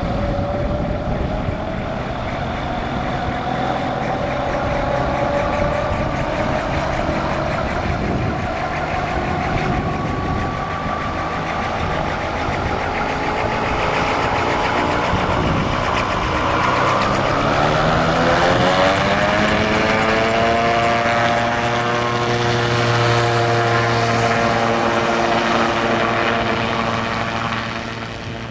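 Skycruiser SC-200 gyrocopter's engine and pusher propeller running on the runway, then rising in pitch as power comes up for the take-off run about two-thirds of the way in. It holds at the higher pitch and grows a little fainter near the end as the gyrocopter lifts off and moves away.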